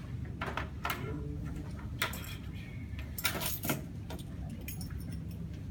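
Rattling and clinking of a laptop and its cables being unplugged and gathered up, with sharp clacks about half a second, two seconds and three and a half seconds in, over a steady low room hum.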